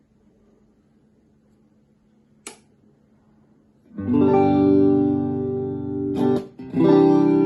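Guitar played through a Davoli Jolly Krundaal tube amplifier: a faint hum and a single click about two and a half seconds in, then a strummed chord rings out from about four seconds, is cut short, and a second chord is struck near the end.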